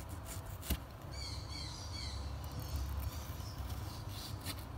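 Chef's knife slicing tomato and knocking on a wooden cutting board, with a sharp knock about three quarters of a second in and a few more near the end. A bird chirps a quick run of short chirps between about one and two seconds in, over a steady low hum.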